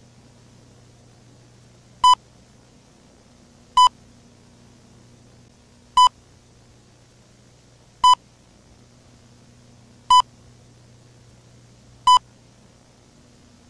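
Six short electronic beeps, each a single high tone, spaced roughly two seconds apart, over a faint steady hum and hiss of VHS tape noise.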